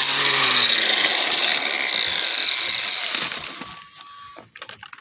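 Handheld power grinder sanding rusted car body metal, a loud high whine over grinding noise that sinks in pitch as the tool winds down and stops about four seconds in, followed by a few light clicks.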